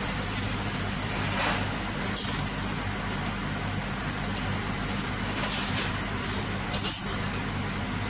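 Dry long-grain rice and browned vermicelli stirred in a stainless steel pot with a wooden spoon, giving a few brief rustling scrapes over a steady low hum.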